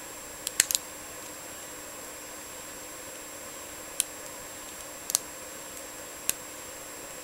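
Sharp little metal clicks from a lock pick and tension wrench working the pin stack of a Best padlock's D-keyway core: a quick cluster of three or four about half a second in, then single clicks about four, five and six seconds in, over a steady hiss.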